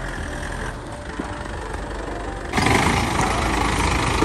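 Vehicle engine running with steady noise, which turns suddenly louder and harsher about two and a half seconds in.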